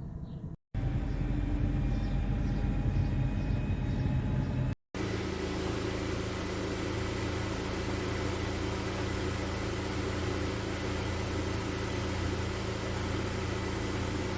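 2016 Honda Civic driving: a steady low road-and-drivetrain drone with a constant hum. The sound is cut twice, first to a louder rumble, then about five seconds in to a slightly quieter steady drone.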